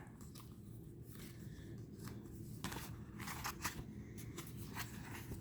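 Faint rustling and a few soft clicks of tarot cards being handled and turned over, over a low steady room hum.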